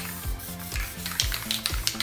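Background music with a steady beat, with a few short hisses from an aerosol spray paint can.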